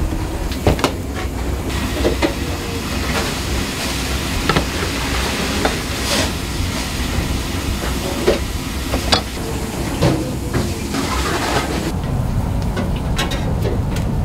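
Busy restaurant kitchen noise: a steady hiss and low rumble with scattered, irregular knocks and clatters of bowls and utensils.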